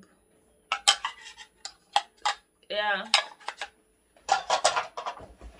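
Children's bowls and plates knocking and clattering against each other as they are handled and set down: a run of separate sharp knocks, then a denser clatter about four seconds in.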